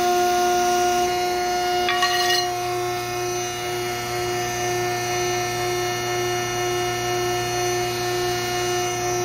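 Steady hum of an electric shop machine running, several fixed tones held throughout, consistent with the hydraulic pump motor of the press brake idling. A short metallic clink about two seconds in.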